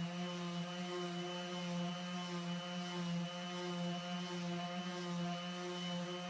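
Handheld electric power tool, such as the sander or polisher used on boat gelcoat, running steadily at one constant speed with an even hum.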